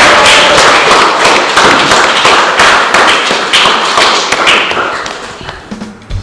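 A small audience clapping and applauding, fading out near the end.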